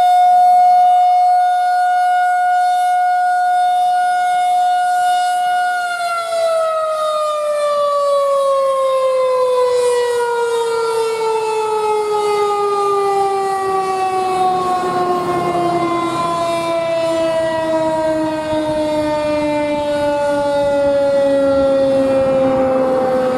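Federal Signal 2001-130 electromechanical outdoor warning siren sounding a steady tone during a siren test. About six seconds in it is shut off and winds down, its pitch falling slowly and steadily.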